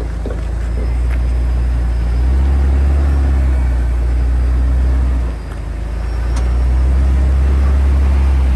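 Rock-crawling Jeep Wrangler's engine running steadily under load as it crawls up a slickrock ledge, with a brief dip in level about five seconds in.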